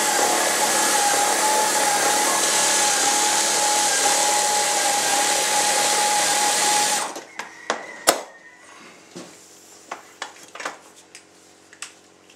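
Power drill running steadily at the jet ski's cleat mount on the hull, then stopping about seven seconds in. A sharp click and a few light knocks follow.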